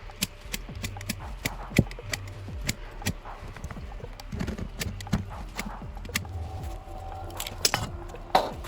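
Irregular knocks, taps and clicks of hand work on a broken garden rake, uneven in loudness, with a louder knock about two seconds in and a cluster of knocks near the end, over a steady low hum.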